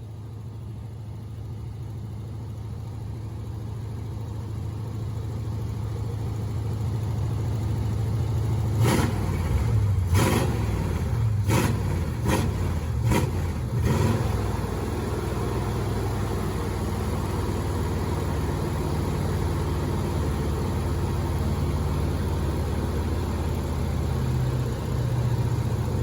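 1985 Chevrolet C10 pickup's engine running, growing steadily louder. About nine seconds in it gives six sharp bangs over some five seconds, then settles back to steady running.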